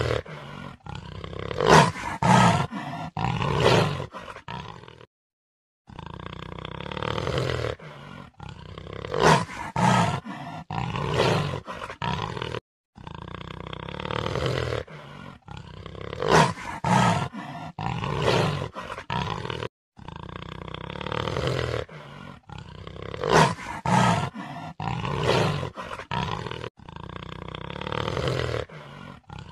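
Jaguar growling and roaring: each call is a drawn-out growl that breaks into several loud roars. The same call repeats about every seven seconds, with a short silence between repeats.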